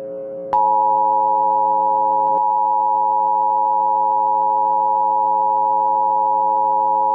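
Emergency Alert System attention signal: two steady tones sounding together at about 853 and 960 Hz, starting about half a second in and holding without a break. It announces the AMBER Alert message that follows. A fainter steady drone lies underneath.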